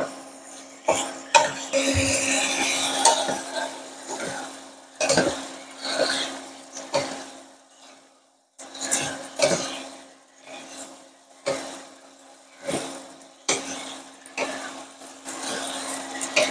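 Two wooden spatulas scraping and knocking against a nonstick pan as chunks of beef are tossed in a stir-fry, about one stroke a second, with a hiss of frying. This is the beef being seared with garlic and shallot before braising.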